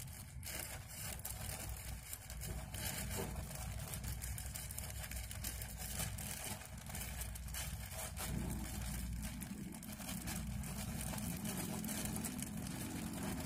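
Thin plastic bag rustling and crinkling in small irregular crackles as it is slowly handled and lifted off a potted cutting, over a low rumble.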